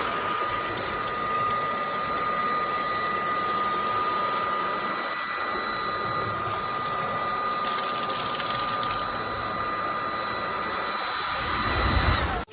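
Buture cordless stick vacuum running: a steady high motor whine over the hiss of rushing air. It cuts off suddenly near the end.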